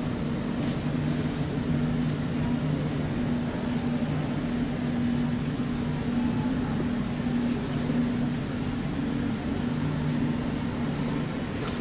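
Steady low mechanical hum made of two low tones over an even hiss, with a few faint clicks.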